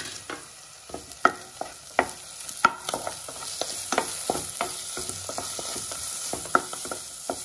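Wooden spatula scraping and knocking against a nonstick pan as chopped onion, green chilli and tomato are stirred, in irregular strokes, over a steady sizzle of frying.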